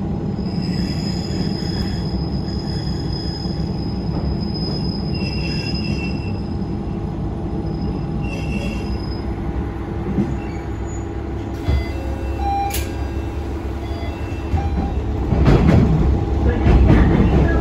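Interior sound of a Heisei Chikuho Railway diesel railcar: steady rumble of the running train, with a high thin wheel squeal for the first several seconds and shorter squeals after it. Near the end the rail noise grows louder and rougher.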